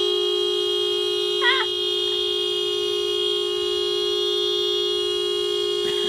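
Car horn held down by a toddler, sounding one long unbroken blast at a steady pitch. A short vocal sound rises over it about a second and a half in.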